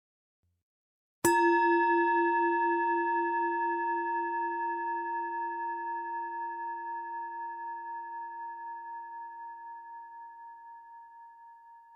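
A singing bowl struck once, a little over a second in, ringing with a low tone and several higher overtones that fade slowly over about ten seconds with a steady wavering pulse.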